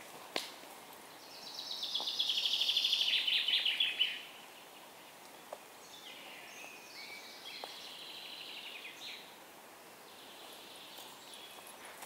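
A songbird singing: a loud rapid trill that slides down in pitch over about three seconds, then a second, quieter song phrase a couple of seconds later.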